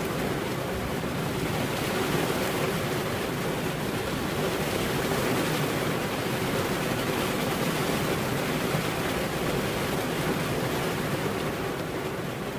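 Steady rain falling, an even rushing hiss with no distinct thunderclap.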